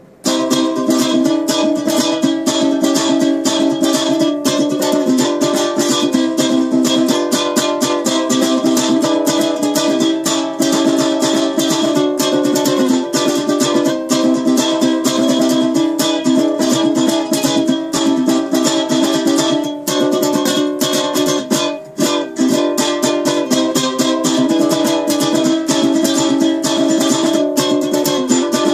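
Homemade steampunk ukulele strummed in a fast, steady rhythm, the chords changing every second or two.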